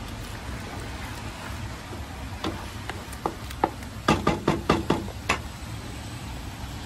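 A spoon tapping and scraping against a steel plate: a few scattered taps, then a quick run of about eight sharp taps near the middle, over a steady low background noise.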